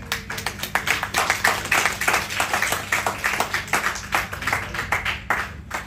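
People applauding: quick, overlapping hand claps that die away near the end.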